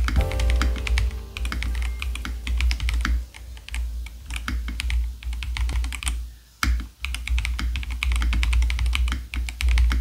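Fast typing on a Redragon K649 Elf Pro mechanical keyboard with factory-lubed transparent switches: a rapid stream of key clacks, with a brief pause between six and seven seconds in. A few sustained music notes fade out in the first second.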